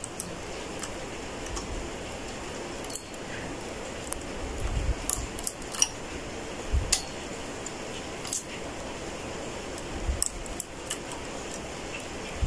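Light metallic clicks and clinks, at irregular intervals, of a transfer tool picking stitches off a knitting machine's metal needles and moving them onto the neighbouring needles. A few soft low thumps are mixed in.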